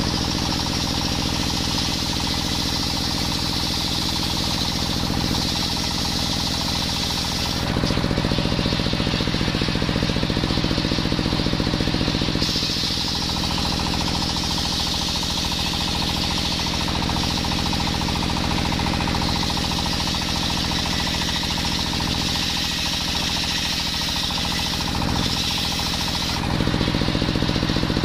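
Table-mounted circular saw, belt-driven by a stationary engine, ripping coconut wood into beams. The engine runs with a steady rapid beat while the blade's cutting noise rises and falls as the wood is fed through, loudest from about eight seconds in and again near the end.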